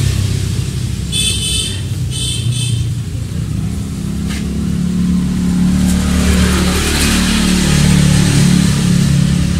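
A motor vehicle engine running, its pitch shifting up and down as it revs.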